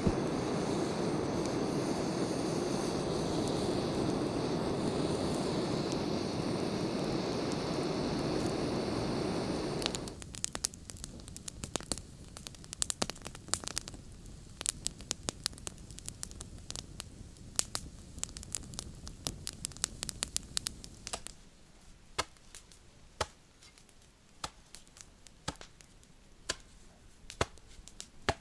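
A hand-held gas torch on a gas canister burns with a steady roar while lighting a pile of dry twigs, then shuts off about ten seconds in. After that the small twig fire crackles and pops with sharp irregular snaps.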